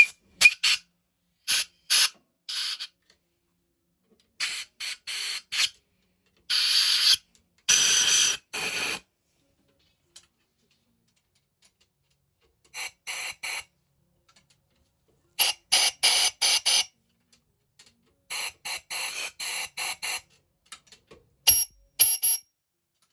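Compressed air from a compressor's air line blowing off freshly cleaned brass fuel-pump parts: a series of short hissing blasts in irregular clusters, each lasting under a second.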